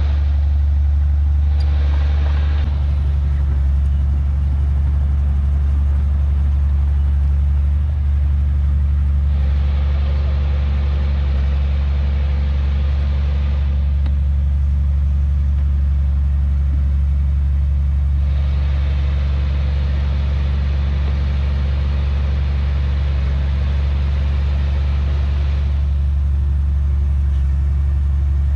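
Heavy diesel engine of earthmoving machinery running steadily with a deep hum. A rougher, higher layer of noise swells twice for several seconds.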